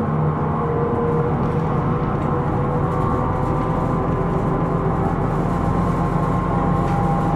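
Interior running sound of a Hino Rainbow II non-step bus driving steadily: continuous engine and road rumble with steady tones riding over it. This is the bus whose unusual running noise the recording sets out to capture.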